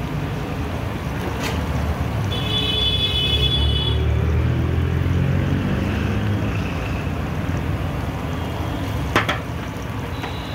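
Hot oil sizzling steadily as a batch of medu vada deep-fries in a large wok, over a steady low rumble. A brief high-pitched tone sounds about two and a half seconds in, and a single sharp knock comes near the end.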